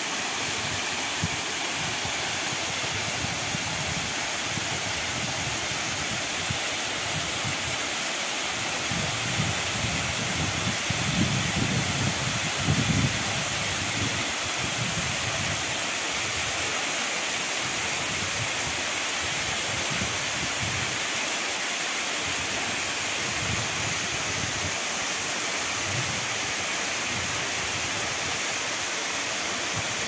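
Waterfall pouring into a rock pool: a steady, even rush of falling water, with brief low rumbles about ten to thirteen seconds in.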